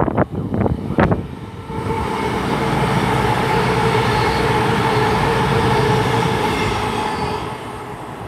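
CrossCountry Class 221 Super Voyager diesel multiple unit passing through at speed: a rush of wheels and engine drone with a steady whine swells in about two seconds in, holds, then fades near the end.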